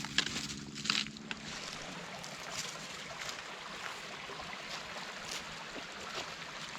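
Footsteps on a rocky trail, a few crunching steps in the first second and a half with a faint low hum under them. A steady rushing hiss of outdoor background noise follows.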